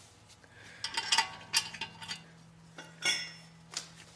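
Steel bolts clinking against metal as they are handled and started into the holes of a wheel bearing flange on a steering knuckle: a few sharp metallic clinks with a short ring, a cluster about a second in and more around three seconds.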